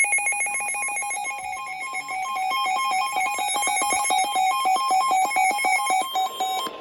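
Electronic emergency-alert tone: rapid buzzy beeps, about ten a second, alternating between two pitches, that stop abruptly near the end.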